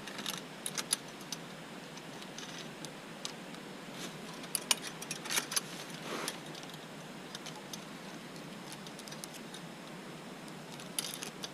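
Metallic clinks and rattles of a bicycle chain and derailleur being handled by hand, in scattered short clusters, as the chain is threaded back through the hand-straightened rear derailleur.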